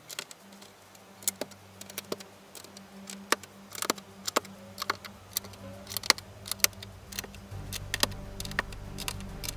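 Plastic Lego-style bricks being handled and pressed together, giving irregular sharp clicks, over a faint low hum that grows louder near the end.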